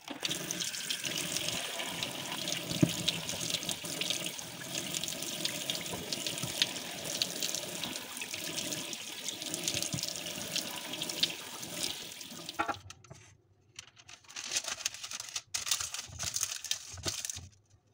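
Water running from a kitchen tap onto eggplants in a sink as they are rinsed and rubbed by hand, a steady splashing hiss. It stops about two-thirds of the way through, and near the end there is intermittent rustling as parchment paper is pressed into a pan.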